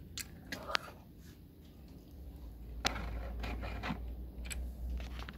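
Handling noise from a camera being picked up and repositioned: a few sharp clicks and knocks, then rubbing with a low rumble from about two seconds in.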